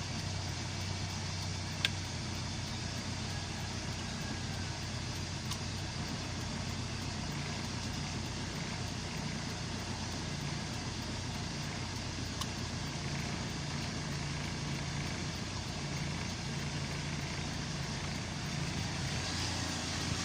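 Mitsubishi Lancer's 4G13 carburetted inline-four engine idling steadily, with a single sharp click about two seconds in.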